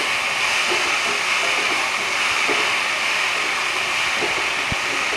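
Sliced bitter gourd and potato sizzling steadily in hot oil in a frying pan, a constant hiss.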